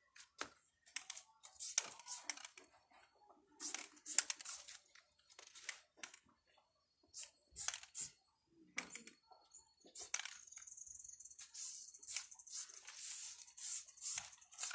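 Aerosol spray paint can hissing in a series of short bursts as lines are sprayed onto a wall, with one longer continuous spray about ten seconds in.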